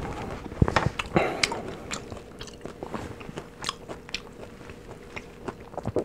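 Close-up chewing of crispy fried chicken: irregular crunches of the fried coating between the teeth, loudest in the first second and a half, then softer, slower chewing.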